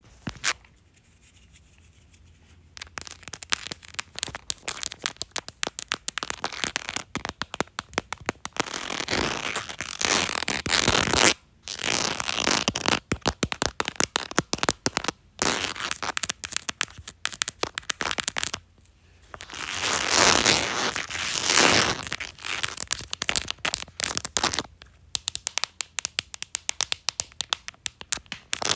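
Fingernails tapping and scratching on a textured phone case: quick, dense runs of small clicks with stretches of continuous scratching. It begins about two and a half seconds in.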